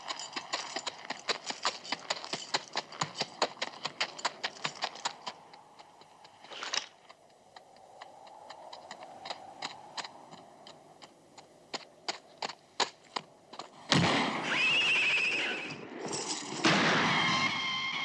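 Horse hooves clopping at a walk on hard rocky ground, a steady run of sharp clicks that thins out about halfway through. Near the end a sudden loud burst of noise with a wavering high tone takes over.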